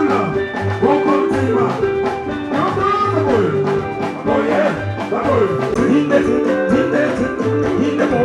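Live soukous band music with a fast, steady drum beat and guitars.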